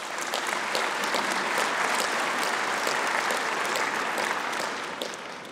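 Audience of delegates applauding in a large hall. The clapping swells in the first second and tapers off near the end.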